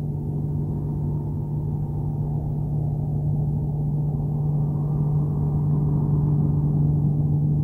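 Low, steady droning 'space sound' presented as the sound of Saturn's rings: one strong held hum over a rumbling undertone, slowly growing louder.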